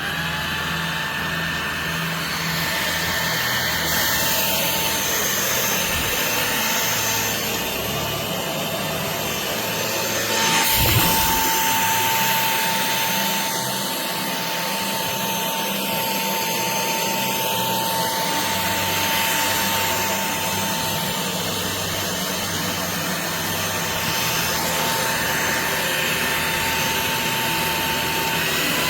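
DIFFULL V20 cordless stick vacuum running steadily, a continuous rushing of air with a steady motor whine. There is a brief knock about ten seconds in.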